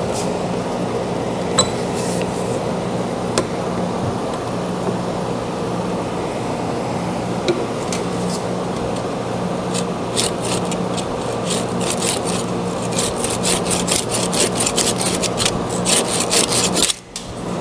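A dovetail saw cuts back and forth through the end of a wooden hammer handle and its epoxy-glued wedge, in repeated quick strokes that come thickest in the second half. A steady low hum runs underneath.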